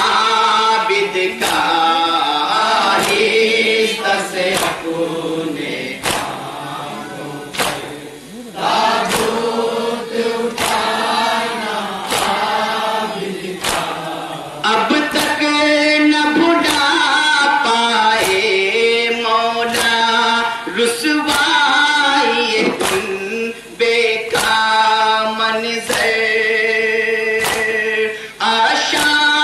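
A group of men chanting a Shia nauha (mourning lament) in chorus behind a lead reciter. Sharp slaps of matam (hands beating on chests) keep time about once a second.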